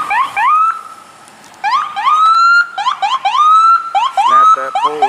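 Emergency vehicle siren whooping: repeated rising sweeps, some quick and some drawn out and held at the top, with a short lull about a second in.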